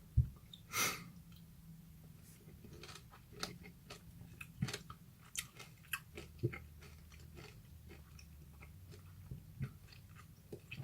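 A person chewing a peeled lemon segment: soft, scattered wet mouth clicks and smacks, with a short bite near the start.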